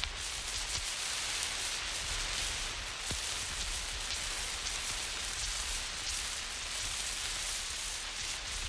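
Burning emergency road flare hissing steadily, with scattered crackles and small pops.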